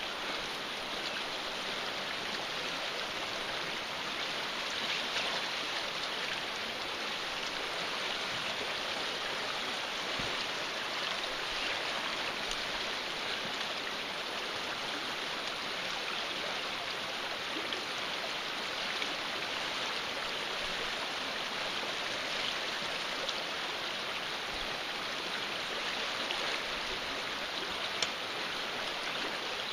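River current rushing and rippling steadily around the boulders and the pontoon boat's hulls. A single sharp tick comes near the end.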